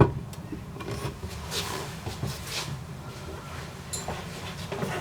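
Soft rustles and light knocks of objects being handled and moved about.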